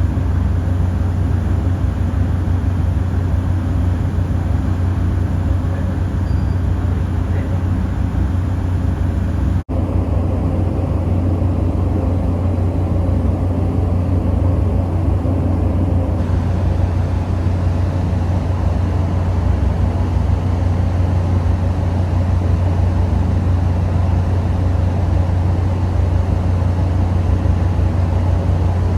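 Car ferry's engines and hull noise: a steady, loud low drone with a constant hum underneath, briefly cut about ten seconds in.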